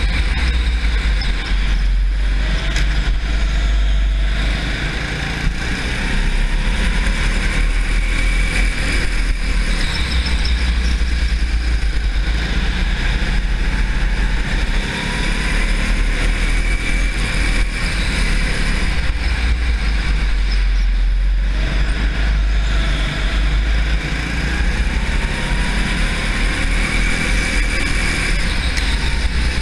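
Racing kart engine running hard, close to the onboard camera. Its pitch climbs and falls several times as it speeds up along the straights and slows for the corners.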